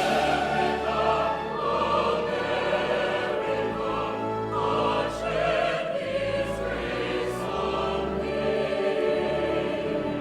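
Soundtrack music: a choir singing with orchestral accompaniment.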